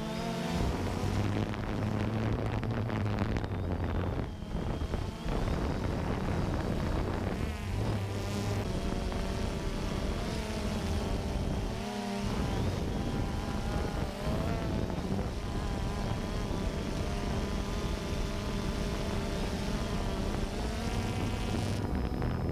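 Electric motor and propeller of a small foam delta-wing RC plane in flight: a buzzing whine that keeps rising and falling in pitch as the throttle changes and the plane passes.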